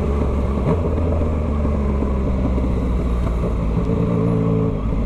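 Yamaha MT-09's CP3 three-cylinder engine running steadily, without revving, through a 3x1 full straight-pipe exhaust.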